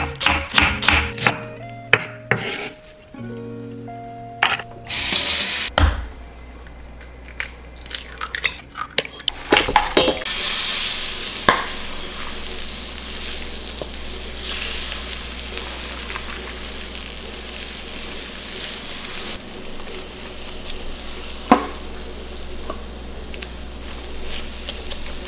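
A knife chopping cabbage on a wooden cutting board for the first few seconds, over background music. From about ten seconds in, a steady sizzle as cabbage pancake batter is spooned onto a hot electric griddle, with one sharp tap near the end.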